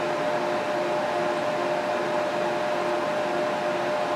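Radiator fans of a water-cooled PC, two San Ace 3,000 rpm fans, running at full speed: a steady rush of air with two faint steady tones over it.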